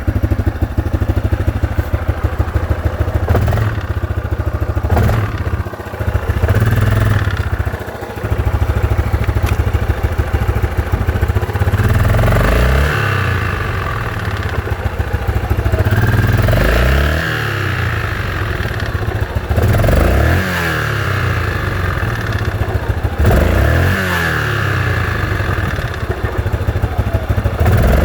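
Yamaha Grizzly 660's single-cylinder four-stroke engine running just after a rebuild with a new Hot Rods crankshaft and Wiseco piston. It idles with an even beat, then is revved up and let fall back to idle about five times in the second half.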